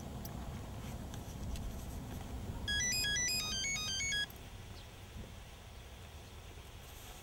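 Mobile phone ringtone: a quick electronic melody of short beeping notes plays for about a second and a half, stops, then starts again at the very end, over a low background rumble.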